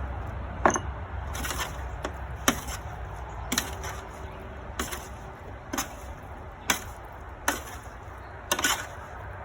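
Utensils knocking against a mixing bowl while chicken wings are tossed in their seasoning, about ten sharp knocks roughly a second apart.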